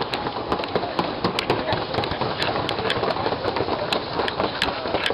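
Many people talking at once in a dense, indistinct crowd chatter, with frequent sharp clicks and taps running through it, several a second.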